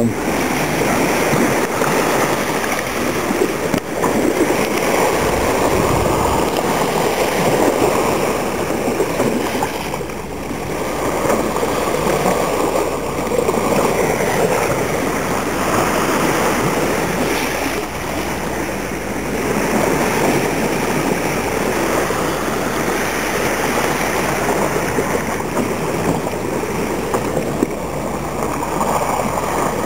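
Water rushing and splashing past the bow of a Hanse 54 sailing yacht under way, a steady wash that swells and eases every few seconds.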